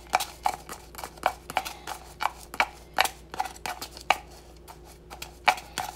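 A metal utensil jabbing and scraping inside a plastic seasoning shaker to break up seasoning that has clumped: a run of irregular sharp clicks and taps, about three to four a second, thinning out a little past the middle with one strong tap near the end.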